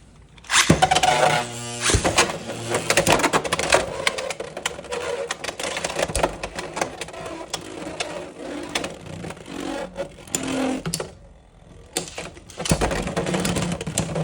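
Beyblade X tops Dran Buster and Hells Hammer launched with a whirring zip of the launchers, then spinning and clashing in a plastic stadium with a rapid clatter of hits that dies away about three seconds before the end. Another burst of clatter starts near the end.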